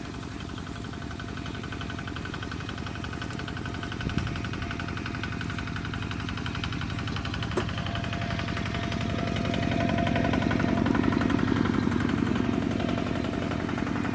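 An engine running steadily with a fast, even pulse, growing louder about ten seconds in, with a couple of brief knocks.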